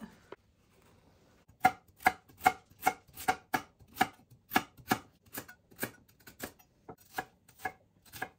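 Chef's knife chopping carrots and onion on a Boos Block end-grain wooden cutting board. About two sharp knocks a second, evenly paced, starting about a second and a half in.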